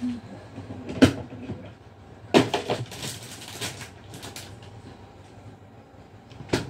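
Kitchen clatter of cookware and cupboards being handled. A sharp knock comes about a second in. Near the middle a louder knock is followed by about a second of rattling, then a few lighter knocks, and there is another sharp knock near the end.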